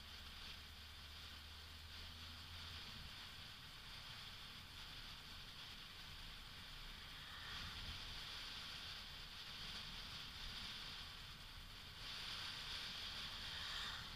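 Steady rushing noise of wind and road passing over a camera mounted on the hood of a moving car, growing a little louder about halfway through and again near the end. A low hum underlies the first few seconds.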